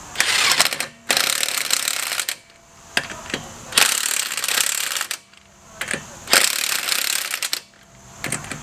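Impact wrench hammering on a car's lug nuts in four bursts of about a second each, with short pauses between them.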